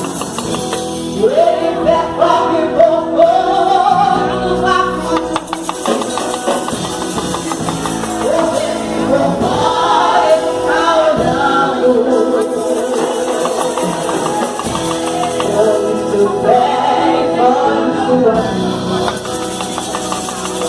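Gospel song performed live: voices singing a melody over a percussion group keeping a steady beat.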